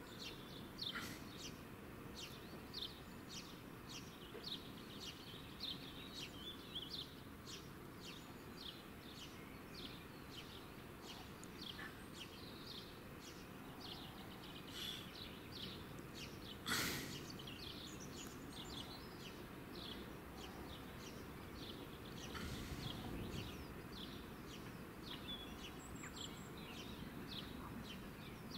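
Small birds chirping over faint outdoor background noise, short high calls two or three a second, with one sharp click about halfway through and a low rumble swelling briefly near the end.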